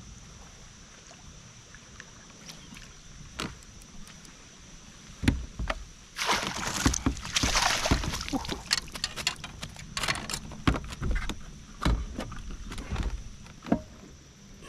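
Bass being landed and handled in a hard plastic fishing kayak: a few quiet seconds, then knocks and clatter against the hull from about five seconds in, with a burst of splashing about six seconds in.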